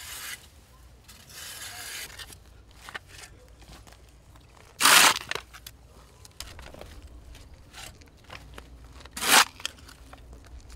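Crunching and rustling of boots and tools in cut grass and loose soil, with a hand shovel scraping and biting into the earth. Two loud, brief shovel strikes about four seconds apart stand out.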